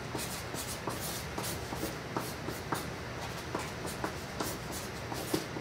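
Marker drawing quickly on paper: short scratching strokes, about three a second, some with a brief squeak.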